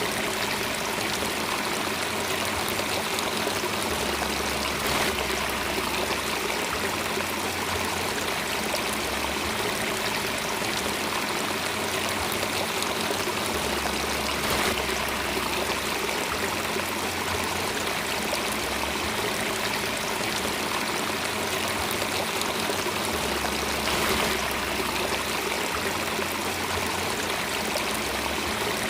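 Steady running water, like a flowing stream, continuous and even throughout. Underneath it a deep low hum comes and goes every few seconds.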